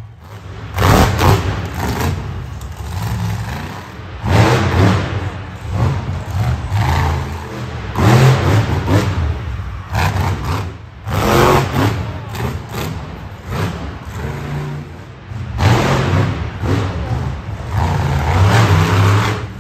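Monster truck engine revving hard in repeated bursts, a surge every second or two, with a deep engine note between throttle blips.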